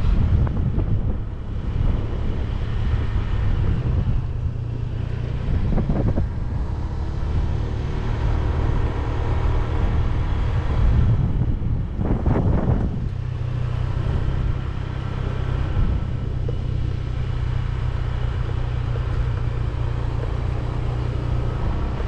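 Motorcycle riding along, its engine running with heavy wind and road rumble. A brief louder rushing noise comes about twelve seconds in.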